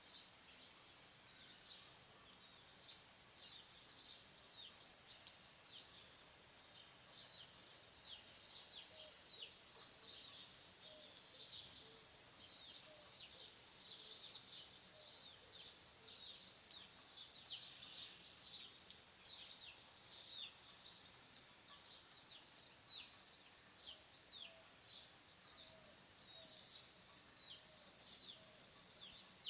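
Many small birds chirping at once, a fast stream of short, high, down-slurred calls, over a faint steady hiss. A few soft, lower calls come through now and then.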